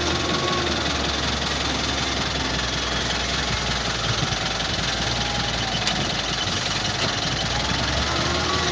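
XCMG LW300KN wheel loader's diesel engine running steadily as the machine drives up with a loaded bucket and lifts it high over a trailer, with a faint whine that rises and falls.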